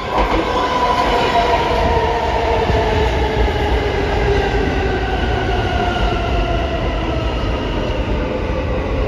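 R160A subway train pulling into the station and running along the platform: a steady rail rumble with its traction motors whining in several tones that slowly fall in pitch as the train slows.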